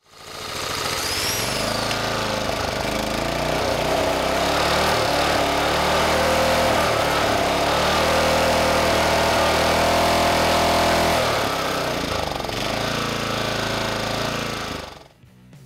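Small single-cylinder gasoline engine running on 100% Seafoam as its fuel, its speed rising and falling unevenly. It starts suddenly and cuts off shortly before the end.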